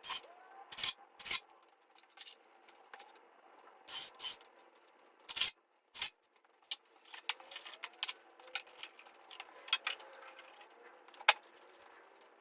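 Scattered sharp clicks and knocks with faint rubbing in between, from wood and hand tools being handled.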